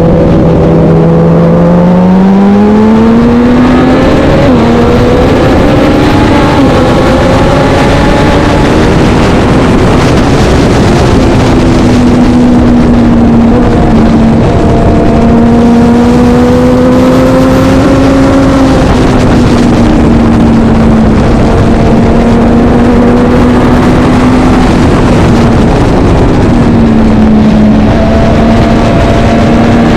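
Vintage racing motorcycle engine running hard at high revs, its note climbing over the first few seconds and then holding with small rises and falls, briefly dropping and recovering near the end, over a steady rush of noise.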